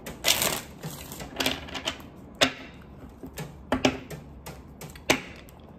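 Tarot cards being handled: several sharp taps and slaps of cards with rustling between them.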